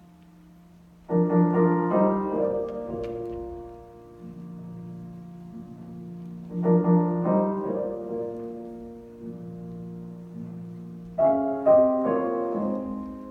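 Slow piano music: a full chord struck about a second in, another near the middle and a third near the end, each ringing on and fading, with low notes sounding in between.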